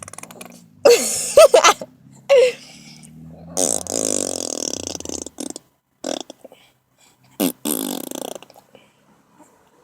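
A three-month-old baby making a string of short fart sounds: four separate bursts with pauses between them, the longest lasting nearly two seconds.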